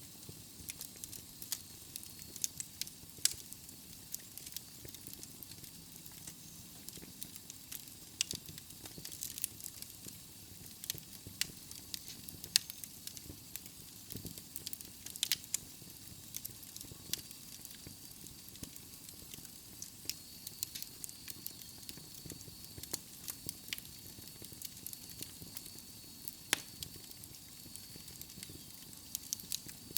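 Wood logs burning in a fireplace, crackling steadily with irregular sharp pops, some louder than others, over a soft hiss.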